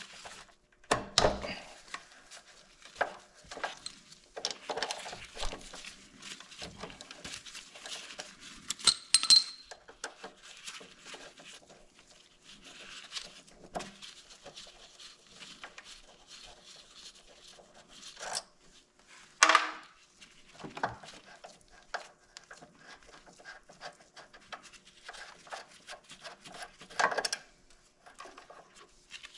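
Scattered metallic clicks, clinks and rattles of a hex-bit ratchet and a motorcycle's front brake caliper being handled as the caliper bolts are undone and the caliper is worked loose from the disc. There is a sharper ringing clink about nine seconds in and a louder knock about twenty seconds in.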